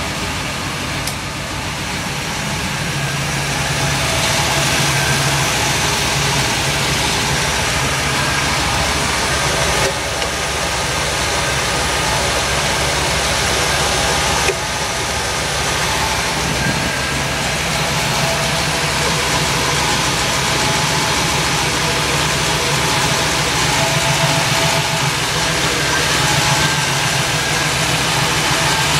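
Jeep CJ5's 350 Chevy small-block V8 idling steadily, running a little louder after a few seconds.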